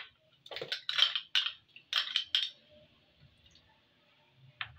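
Metal spoon clinking and tapping against a small glass bowl and the plastic blender jug while crushed almond pieces are spooned into the milk: a quick run of sharp clinks over the first two and a half seconds, then one more near the end.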